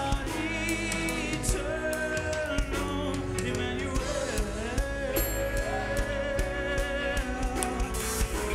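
Youth choir singing a praise song with instrumental accompaniment, voices holding and gliding between notes over a steady beat of drum and cymbal hits.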